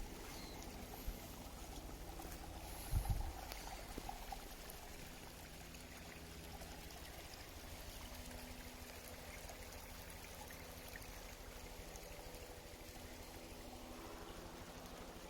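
Steady rushing noise of running water, with a dull low thump about three seconds in.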